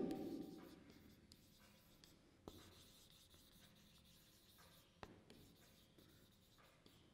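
Faint rubbing of a felt-tip marker writing on a whiteboard, with two faint clicks about two and a half seconds apart.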